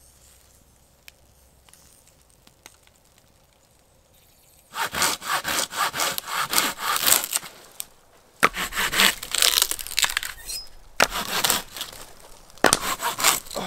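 Hand saw cutting through a dry tree trunk for firewood in quick back-and-forth strokes. The sawing starts about five seconds in, stops briefly, then goes on.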